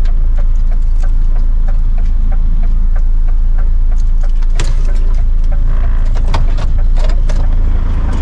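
A motorcycle pulling in to stop, with a heavy, steady low rumble and a quick regular ticking of about four a second. A few sharper clicks and knocks come about halfway through.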